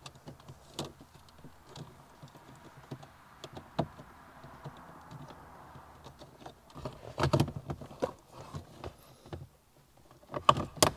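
Wiring and plastic dashboard parts being handled in a car's dash opening: a run of small clicks and taps over a light rustling, with a few louder plastic knocks about seven seconds in and again near the end.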